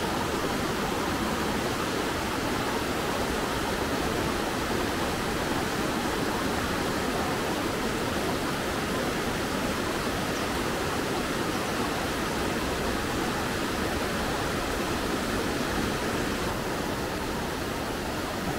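Steady rushing of mountain-stream rapids, white water tumbling over boulders, an even, unbroken sound that neither rises nor falls.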